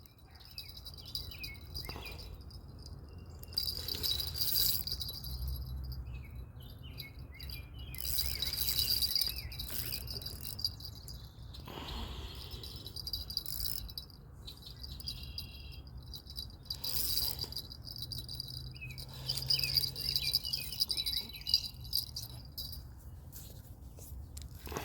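Insects buzzing in a steady high chorus, with birds chirping now and then and a few brief rushes of noise.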